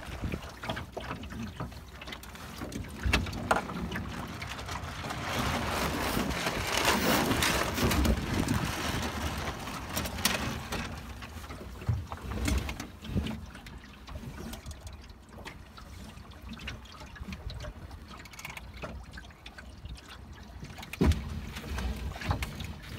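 Water splashing and trickling along the hull of a 2.4mR sailing keelboat under way, swelling louder for a few seconds in the middle, with scattered small knocks.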